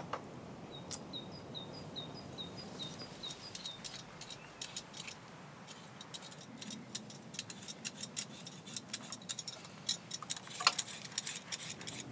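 Quick, rapid strokes of a blade scraping the skin off fresh ginger root, growing denser in the second half. Early on a small bird gives a quick run of about ten short high chirps.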